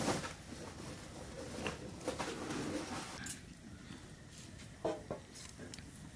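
A few soft clicks and taps of fingers and rice against a steel plate as rice and curry are mixed and eaten by hand, over a quiet room.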